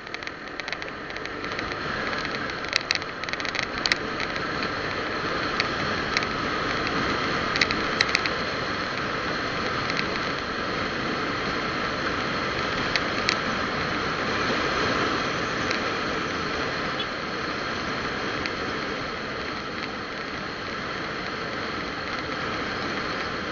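Steady road, wind and engine noise of a moving vehicle heard from on board, with a few sharp rattling clicks in the first eight seconds and one more about thirteen seconds in.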